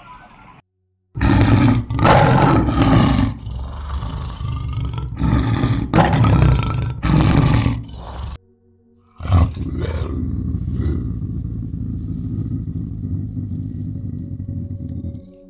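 Male lions roaring: about seven loud, hoarse bursts in succession. After a short pause, a quieter, steadier animal sound runs for about six seconds.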